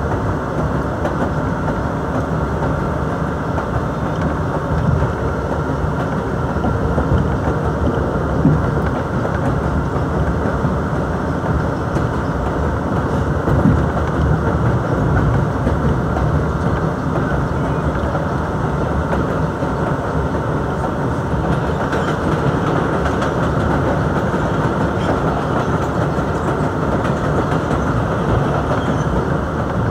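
R62A subway car running at speed on an elevated line, heard from inside the car: a steady rumble of wheels on rails and running gear. A little more high-pitched noise joins in over the last several seconds as another train passes on the next track.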